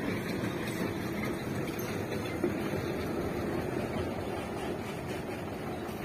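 Dump truck's diesel engine running steadily as the truck approaches along the road.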